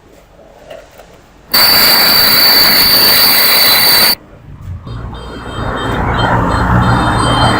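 A metalworking tool running loud and steady with a high whine, starting and stopping abruptly, then a rougher noise building up with a low hum near the end.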